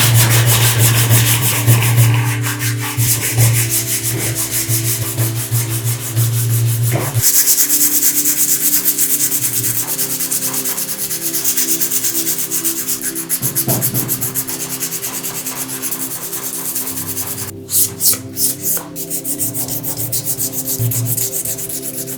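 Abrasive sanding of a Zippo lighter's metal case: a continuous rasping hiss of rapid strokes over a low steady hum. The hum drops out partway through, and the sanding breaks briefly into a few separate strokes late on.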